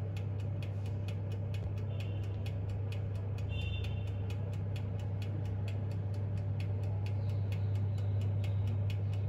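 Countertop electric oven running in fan mode: a steady low hum from the convection fan, with the mechanical timer ticking in a quick, even rhythm.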